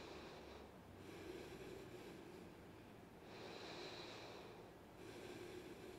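A person's faint, slow breathing while holding a standing yoga pose, about three long breaths in and out.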